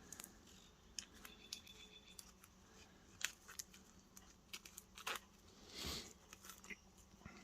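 Faint crinkling, tearing and small clicks of plastic wrap being pulled off a stack of game cards as the cards are handled.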